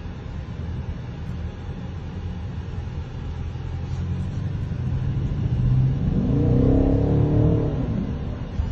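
BMW X6 M50i's twin-turbo V8 exhaust running with a low steady rumble, then revved once about six seconds in, the pitch rising and falling back near the end.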